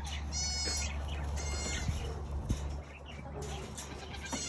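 Farm animals calling: two short, high-pitched calls in the first two seconds and another near the end, over a steady low hum.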